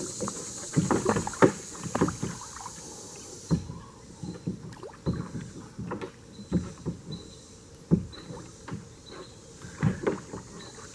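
Irregular knocks, scrapes and splashes against the kayak as a large hooked turtle struggles while the hook is being worked out. A high insect buzz in the background cuts off about a third of the way in.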